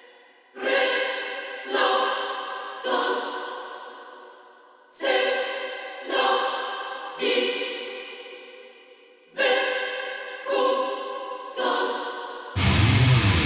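Sampled choir (Aria Sounds' Aurora choir) sounding short chords with long reverb tails, nine stabs in three groups of three about a second apart. Near the end the full metal band comes in: distorted guitars, bass and drums.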